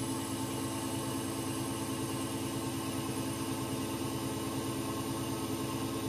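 CNC lathe running steadily at a slow feed, its turning insert cutting down the shank of a BAP300R milling cutter. The sound is an even machine hum with several constant tones.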